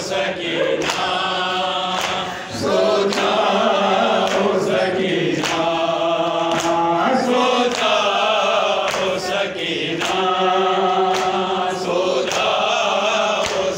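A man singing a noha, a mournful lament, into a microphone, in long chanted phrases, over a steady beat of a hand striking the chest (matam) about every 0.6 seconds.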